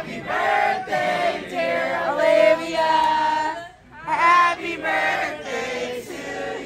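A group of people singing a birthday song together, several voices at once with held notes and a short break about four seconds in.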